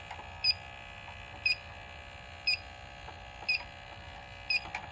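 Electronic refrigerant leak detector beeping steadily, short two-tone beeps about once a second, as it is swept across an evaporator coil. The slow, unchanging rate is the idle tick of a detector picking up no refrigerant.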